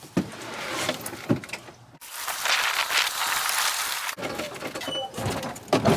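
Scraping, rustling and knocking as a heavy log and clutter are shifted by hand, with a loud, rough scraping rush lasting about two seconds in the middle that stops abruptly.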